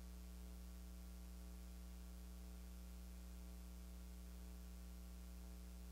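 Faint, steady electrical mains hum, a low buzz with its overtones, over a constant hiss.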